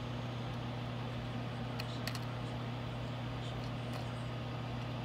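A steady low hum, with a few faint light clicks of small metal bracelet charms being handled about two seconds in.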